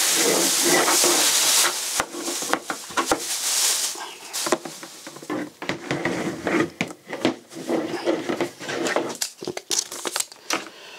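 Plastic packaging bag crinkling loudly as the pump housing is pulled out of it for about the first two seconds, then lighter rustling of paper and scattered knocks of plastic parts being handled on a table.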